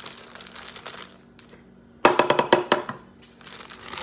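Plastic bag of mini marshmallows crinkling as it is handled, then about two seconds in a sudden loud ringing clatter lasting about a second.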